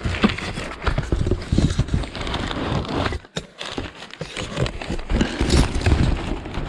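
Cardboard box and packaging being handled and pulled open one-handed: irregular knocks, thumps and rustling.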